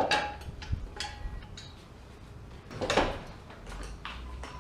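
Clinks, knocks and clatter of hard objects being handled, with a louder scrape about three seconds in.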